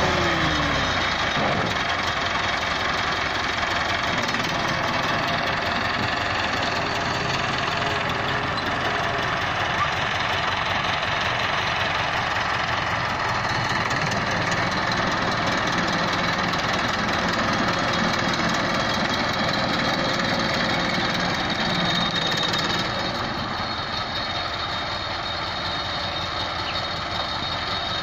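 IMT 577 tractor's diesel engine working while the tractor drags a rear scraper blade through a heap of earth and dung. Its note falls about a second in, then it runs steadily, a little quieter near the end.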